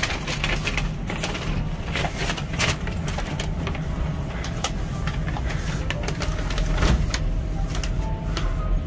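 Steady low hum inside a KTX high-speed train carriage, with scattered clicks and rustles from people walking down the aisle and handling a paper bag. Near the end a bag is pushed onto the overhead luggage rack.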